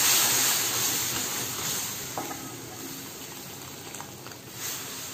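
Water from the pressure-cooked mutton pouring into a kadai of hot frying masala: a loud sizzle that gradually dies down, swelling briefly again near the end as more is poured.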